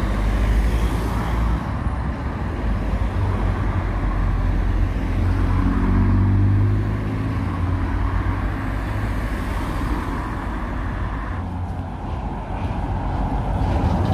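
Road traffic: cars driving past close by, engines and tyres on the road, loudest about six seconds in as a car goes by.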